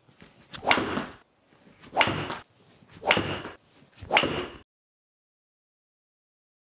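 Golf driver swung four times in quick succession, about a second apart. Each time a short swish is followed by the sharp crack of the clubhead striking the ball. The sound then cuts off to silence just past the middle.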